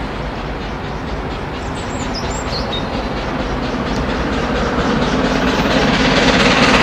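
GWR King Class four-cylinder 4-6-0 steam locomotive No. 6024 King Edward I accelerating hard: a rapid, even beat of exhaust blasts over the rumble of the train, growing steadily louder as it approaches.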